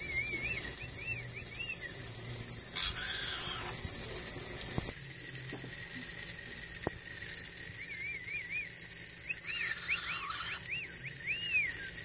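Water spraying from a garden hose onto wet concrete, a steady hiss that cuts off suddenly about five seconds in. A bird chirps in quick runs of short, high rising-and-falling notes near the start and again in the second half.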